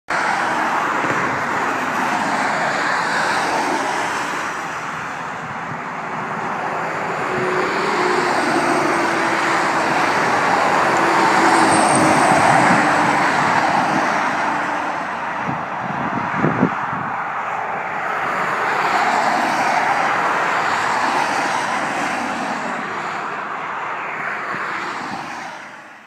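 Road traffic passing close by: tyre and engine noise of vehicles swelling and fading in slow waves, with a brief sharp knock about two-thirds through. It fades out at the end.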